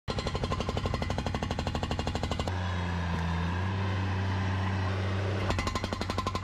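Hydraulic breaker on a Bobcat MT85 mini track loader hammering a concrete driveway slab in rapid, even blows. The blows stop for about three seconds in the middle while the loader's engine runs steadily, then the hammering starts again near the end.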